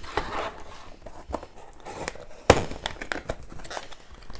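A cardboard kit box being handled and opened by hand: rustling and scraping of the glossy cardboard with scattered light taps, and one sharp knock about two and a half seconds in.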